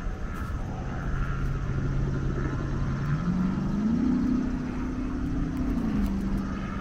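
An engine's steady drone that rises in pitch about three to four seconds in, holds, then drops a little near the six-second mark, over a low rumble.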